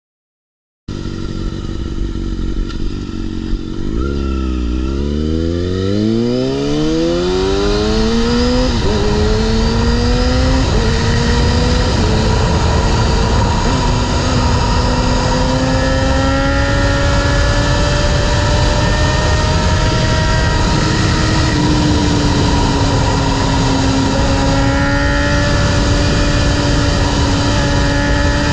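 2021 Kawasaki ZX-6R's 636cc inline-four engine, starting about a second in, accelerating through several quick upshifts, its pitch climbing and dropping back at each shift, then running at steadier revs. Wind noise on the microphone runs underneath.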